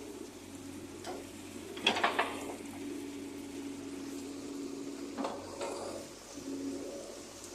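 JCB 3DX backhoe loader working, a steady hum running under sharp metallic clanks about two seconds in and again about five seconds in.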